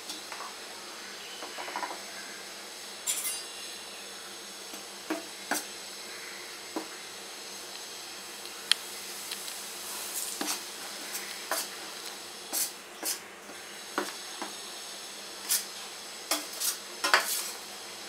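Steel spoon and small pan clinking and scraping against a stainless steel bowl as hot oil is poured into gram flour and stirred in: a dozen or so short, irregular metal clicks and knocks, the loudest near the end.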